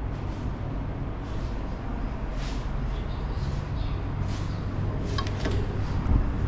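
Outdoor background noise: a steady low rumble with faint passing hiss, and a few sharp clicks about five seconds in.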